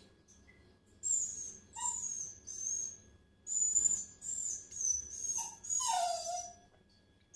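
Maltese puppy whining: a string of about eight short, high-pitched whines with a brief pause about three seconds in. The puppy is asking to be lifted out of the washbasin.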